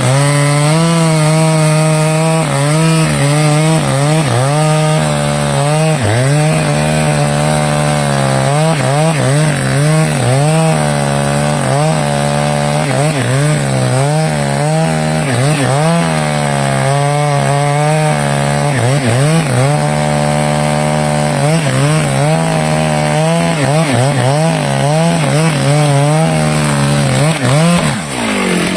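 Stihl chainsaw running at high speed while cutting teak wood, its engine note wavering up and down as the chain bites and eases. Near the end the note dips briefly and changes.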